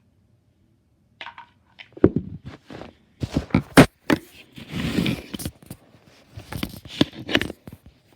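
Plastic novelty gumball machine bank being handled: a run of sharp clicks and knocks with scraping and rattling, starting about a second in.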